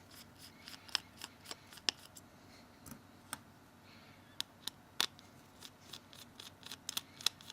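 Small Phillips screwdriver undoing two tiny screws in a smartphone's frame: faint, irregular metallic clicks and ticks, with a cluster of sharper clicks near the end.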